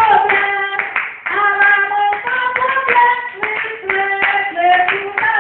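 A woman singing a Creole gospel song in long held notes, with hand clapping in time.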